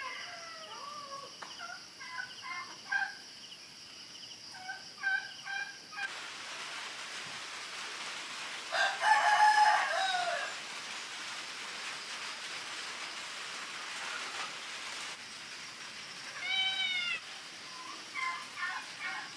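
A rooster crows once, about nine seconds in, a call of about two seconds that falls away at the end and is the loudest sound. Short bird chirps come before it and again near the end, over a steady high background hum.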